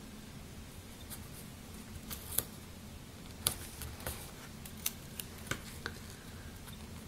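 Sticker strips being peeled and pressed onto a paper planner page: scattered short paper crackles and fingertip ticks.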